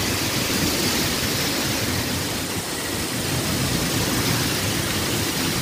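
Typhoon-force wind blowing hard and without a break, a constant rushing noise.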